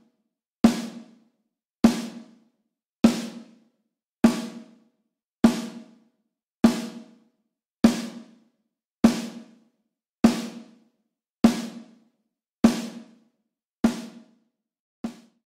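A sampled snare drum in a virtual drum plugin, struck once about every 1.2 seconds with the same hit each time. Each stroke rings out for most of a second before the next, and the last one near the end is cut short.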